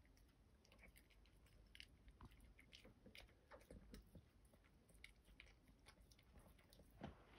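Faint, irregular chewing clicks of a small dog eating chicken from a bowl.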